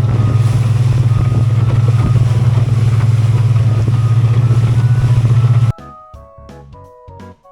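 Boat engine running steadily with a loud, even low drone, cutting off abruptly near the end, leaving background music.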